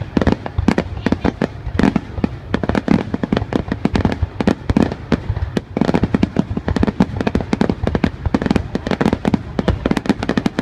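Fireworks display: aerial shells bursting in a dense, unbroken barrage of loud bangs, several a second, overlapping one another.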